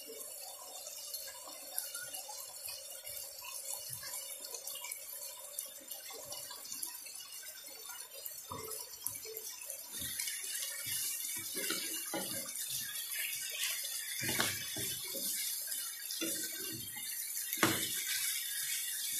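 Chicken curry simmering and sizzling in a pan. The sizzle grows louder about halfway through, as carrot pieces go in, and scattered knocks and scrapes of a wooden spatula stirring come near the end.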